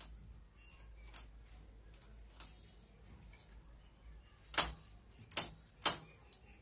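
Light metallic clicking of a small hand tool against the needles of a domestic knitting machine's needle bed as stitches are worked by hand. Three sharper clicks come close together in the second half.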